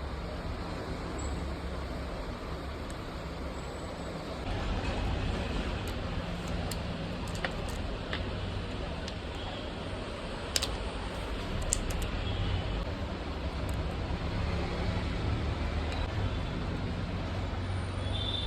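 Steady low rumble of background traffic, growing louder about four seconds in, with a scatter of small sharp clicks.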